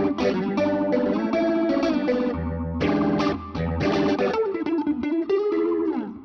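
Electric guitar phrase played through a Cratere effects-plugin preset: a run of notes with pitch slides toward the end, ringing out and fading away near the end.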